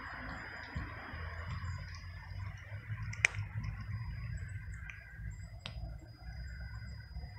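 Cat chewing dry kibble, with two sharp crunches: the louder about three seconds in, another near six seconds. Under them runs a low steady background rumble.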